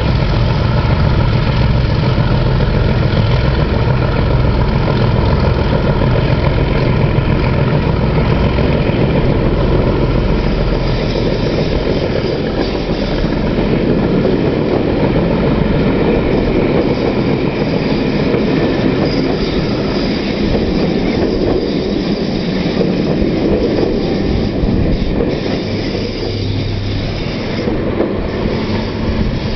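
Passenger coaches rolling past on the rails, wheels clattering and now and then squealing, while the drone of the two Class 37 diesel locomotives hauling them fades away ahead over the first ten seconds or so.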